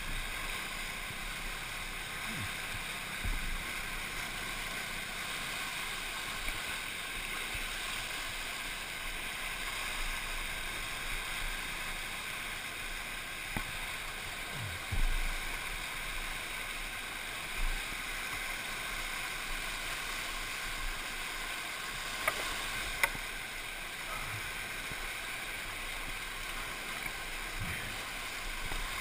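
Steady rush of fast, flood-swollen whitewater around a kayak, heard muffled through a GoPro camera's housing. A few dull thumps come through it, and two sharp clicks near the end.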